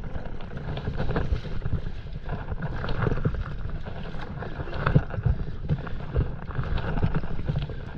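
Wind rumbling on the camera's microphone, with water lapping and splashing against the hull of a stand-up paddleboard as it moves.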